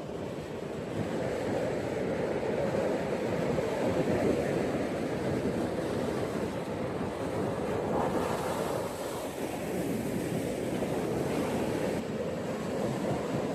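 Ocean surf washing onto a beach, a steady rushing sound that swells slightly about four seconds in and again around eight seconds.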